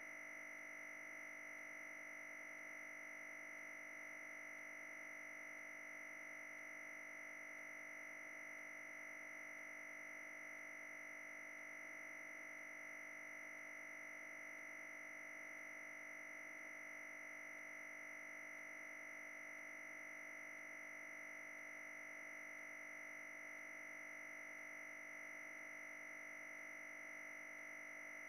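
Very faint, perfectly steady hum and high whine that never changes: electrical noise on the sound track, with no sound of the machine working.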